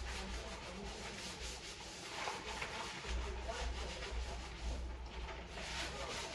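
Uneven rubbing and rustling strokes, like things being handled and moved about close to the microphone, with a low rumble that comes and goes.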